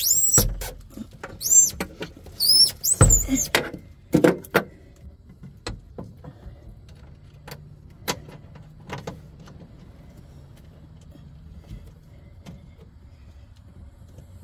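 Several short, high-pitched squeaks that rise and fall, from something rubbing in a cramped battery compartment, over the first four seconds. Scattered small clicks and taps from handling the terminal bolt and washer follow, then only a faint low hum.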